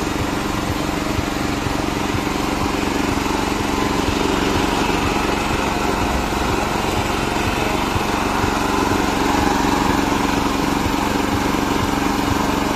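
Small engine of a mini rotavator running steadily.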